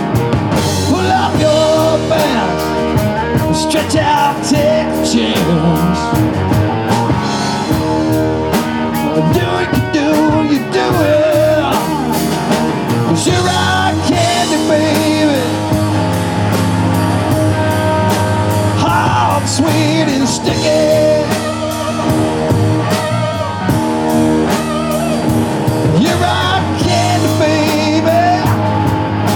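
Live rock band playing, with a singer over electric guitar and drums.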